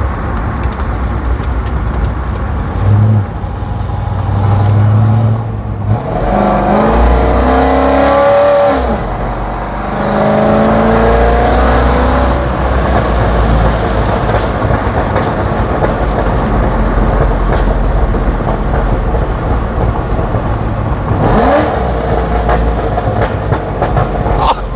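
Loud C6 Corvette V8 accelerating hard, revving up twice in the first half with a drop in pitch between the pulls, then running steadily, with a short rev rise near the end.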